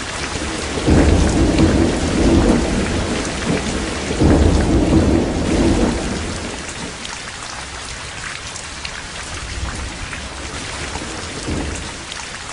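Steady heavy rain with scattered drop ticks, and two rolls of thunder, one about a second in and one about four seconds in, with a fainter rumble near the end.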